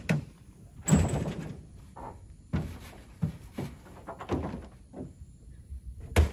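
Pickup truck tailgate unlatched and dropped open with a loud clunk about a second in, followed by irregular knocks and thuds on the metal truck bed as a person climbs in and moves a string trimmer about, with a sharp knock near the end.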